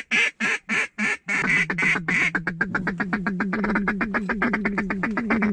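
Duck call blown by a hunter: a string of loud quacks, about four a second, that ends about a second in, then a fast feed-call chatter of short clucks, roughly ten a second.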